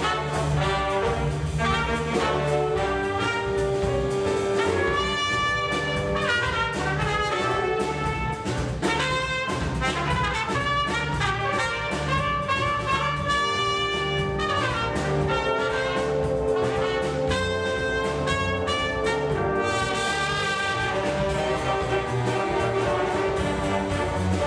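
Jazz ensemble playing a big-band chart: trumpets and trombones sound sustained chords over a steadily pulsing low bass line.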